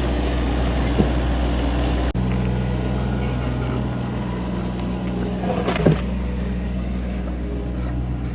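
Motor vehicle engine running with a steady low hum. About two seconds in the sound changes abruptly to a steadier pitched engine drone, and a brief knock comes near six seconds.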